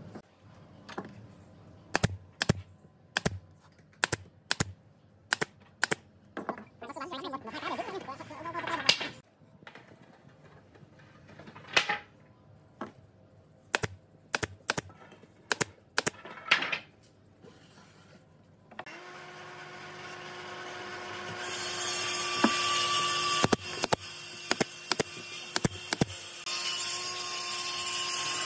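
A run of sharp knocks and clicks as wooden pieces are handled and set in place, then a cordless drill runs steadily for the last several seconds, driving screws into the wood.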